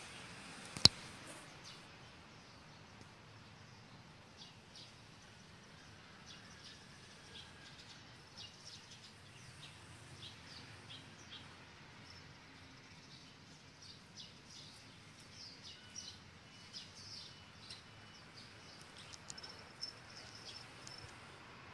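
Small birds chirping in short, high, scattered calls, coming more often in the second half. A single sharp click about a second in is the loudest sound.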